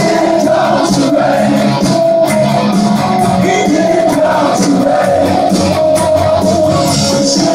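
Live rock band playing loud through a concert PA: distorted electric guitars and a steady drum beat, with vocals.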